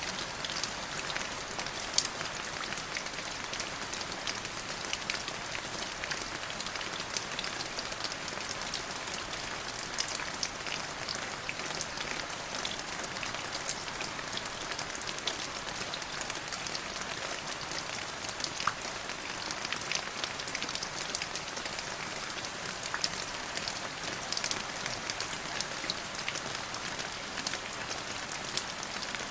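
Steady rain falling, an even hiss studded with many separate drop hits.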